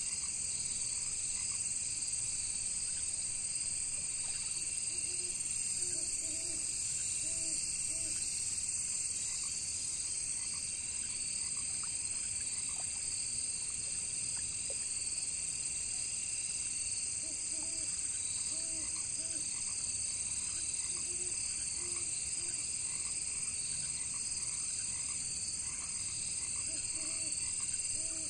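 Crickets and other insects trilling steadily in a high, layered chorus. Frogs croak over it in short groups of two or three calls every few seconds.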